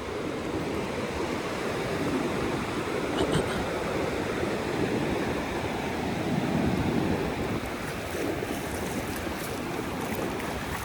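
Sea surf washing onto the beach, with wind rushing on the microphone; the wash swells about two seconds in and again near seven seconds.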